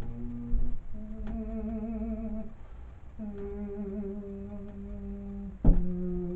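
A slow melody hummed in long held notes with a slight waver and a short breath-like pause midway. A sharp knock sounds near the end.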